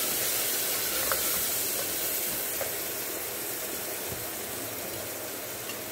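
Finely chopped onion sizzling in hot mustard oil in a pressure cooker, stirred now and then with a wooden spatula: a steady frying hiss that slowly eases, with a couple of light knocks of the spatula.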